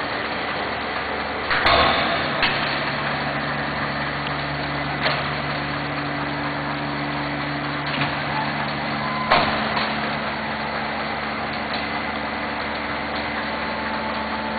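Double-chamber vacuum packaging machine running: a steady motor hum from the vacuum pump, with a few sharp clunks from the machine as its lid moves between the chambers, the loudest about a second and a half in and again about nine seconds in.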